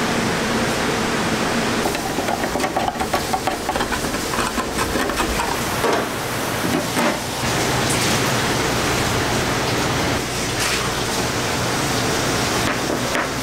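Handheld can opener being worked around the rim of a large tin can, a run of quick clicks and scrapes lasting a few seconds. Over a steady background hiss.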